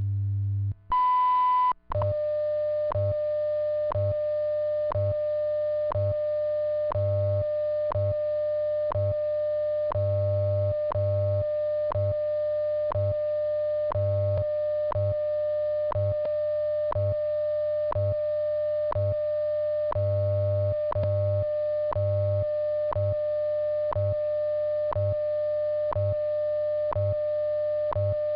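WWV time-station broadcast received on a radio: the high minute-marker beep sounds for under a second about a second in, then a steady single audio tone runs on with a short tick every second, over a low hum that pulses in long and short beats (the station's time code) and light hiss.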